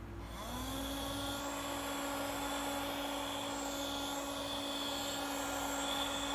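Homemade mini blower, a small motor and fan in a plastic spray-bottle housing powered by a phone charging cable, switched on and spinning up about a quarter-second in, then running at one steady pitch with a constant whine and a rush of air.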